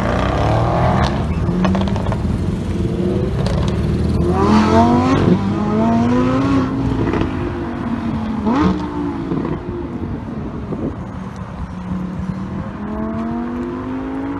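Lamborghini Huracán Performante V10 and Audi RS6 twin-turbo V8 on a Miltec exhaust accelerating hard away, their engine notes sweeping up and dropping back several times with a few sharp cracks among them. In the second half the sound settles into a steadier, lower engine note.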